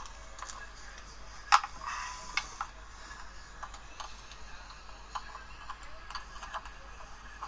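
Scattered light clicks and taps from handling a phone and a charging cable, with one sharper click about a second and a half in.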